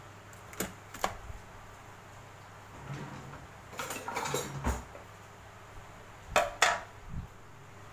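Hard knocks and clatter in a stainless steel kitchen sink as crabs and kitchen things are handled: two sharp clacks near the start, a short run of clatter about halfway, and the two loudest knocks followed by a dull thud near the end.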